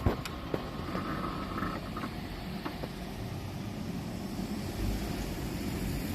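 Low rumble of a 485-series electric train moving away along the track, with a few last wheel clicks over rail joints in the first three seconds, then steady low rumble.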